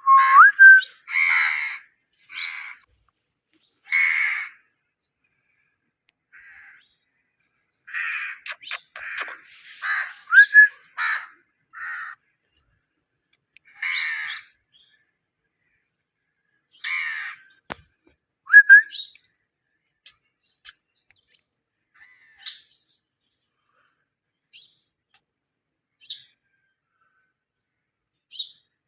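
Pet parrot calling in short, harsh squawks and chirps with pauses between, with a few quick rising whistles mixed in. The calls come thick in the first half and thin out to scattered faint chirps later.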